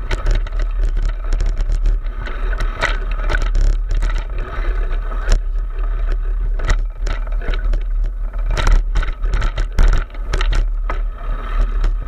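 Wind buffeting a moving action camera, with rattling knocks from the camera mount as it jolts over a bumpy dirt trail.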